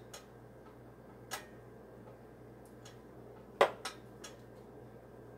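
A few light, sharp clicks and taps of kitchenware being handled at the stove, the sharpest about three and a half seconds in, over a faint steady hum.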